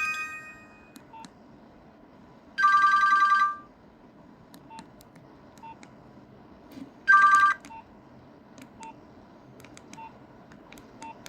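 Nokia 1661 mobile phone's keypad and menu beeps: two loud steady two-tone beeps, the first about a second long and the second about half a second, between faint short key-press clicks with a brief pip. The last note of a ringtone melody fades out at the start.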